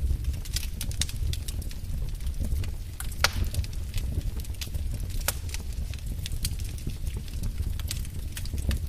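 Wood fire in a fireplace crackling with irregular sharp pops over a low steady rumble; the loudest pop comes about three seconds in.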